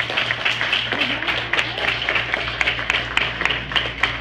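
Many hands clapping irregularly, like an audience applauding, over a steady low hum.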